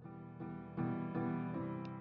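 Quiet background music: a melody of keyboard notes, a new note every few tenths of a second.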